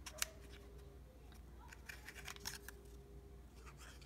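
Faint scattered rustles and small clicks of paper die-cuts being handled while glue is applied from a precision-tip glue bottle, with one sharper click just after the start, over a faint steady hum.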